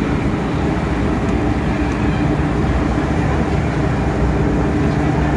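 Steady low hum and rumble of an MTR M-train at a station platform, with a constant low drone.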